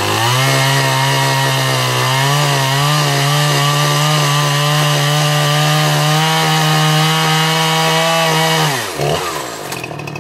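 Gas chainsaw running at high revs, its pitch wavering slightly as it cuts dead mesquite wood, then the revs drop sharply to idle near the end.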